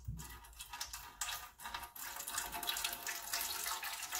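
A thin stream of water poured from a plastic jug splashing into the plastic bowl of a kitchen scale. It starts as uneven splashes and becomes a steadier, slightly louder pour about two seconds in.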